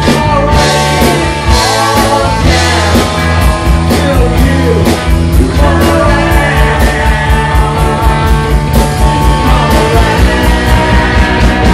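Live rock band playing loudly: electric guitar, bass guitar and a steady drum beat with cymbals, with a lead vocal over the top.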